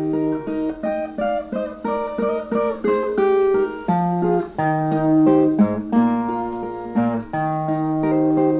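Brazilian viola, the ten-string folk guitar, playing an instrumental melody of quick plucked notes over low bass notes, between sung verses.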